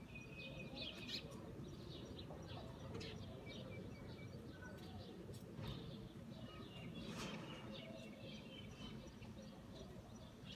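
Birds chirping faintly: short high chirps and brief whistled notes scattered throughout, over a steady low background hum.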